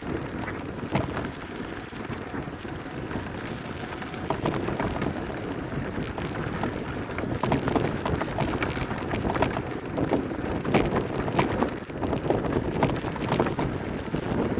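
Bicycle tyres rolling over a rough dirt and stone trail, with a steady rush of wind on the microphone and many small rattles, clicks and knocks from the bike. The sound grows a little louder after about four seconds and again a few seconds later.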